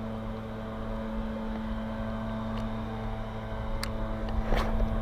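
A steady mechanical hum with a low drone underneath, from an unseen motor or machine. About four seconds in comes a sharp click, then a brief rustle as the rod and reel are handled.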